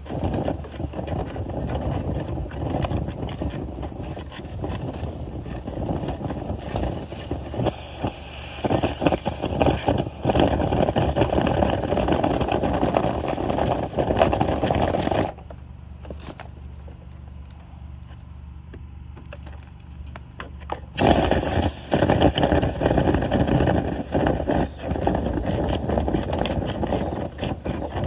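A motor-driven tool running with scraping and rattling, which gives way about fifteen seconds in to a quieter, steady low hum for about six seconds before the scraping and rattling return.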